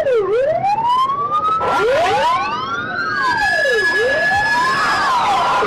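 Several sirens wailing together, each sweeping slowly up and down in pitch and overlapping one another.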